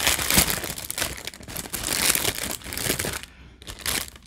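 Clear plastic packaging crinkling and crackling as hands pull at and open the bag around a bundle of small drill bags. The crackling stops about three seconds in, with one brief rustle near the end.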